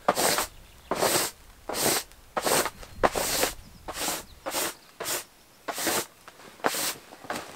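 A small hand brush sweeping a tent's fabric floor in quick repeated strokes, each stroke a short swish, about one and a half a second.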